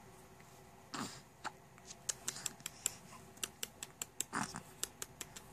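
Faint baby hiccups: a soft one about a second in and another near the end, with a run of quick little clicks in between.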